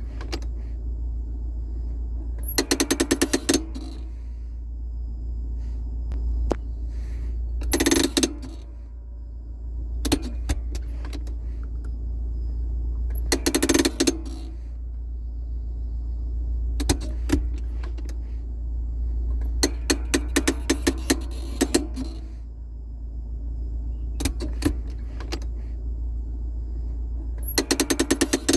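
Fiat Uno handbrake lever ratcheting: short bursts of rapid clicks, about eight of them, each a second or so long, as the lever is worked again and again, over a steady low hum.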